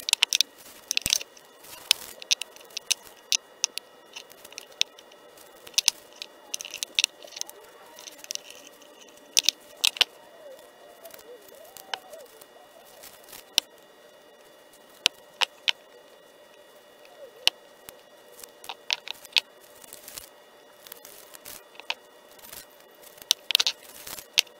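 Green painter's tape being peeled off freshly spray-painted cast-iron vise parts: irregular crackling rips and sharp clicks over a faint steady hum.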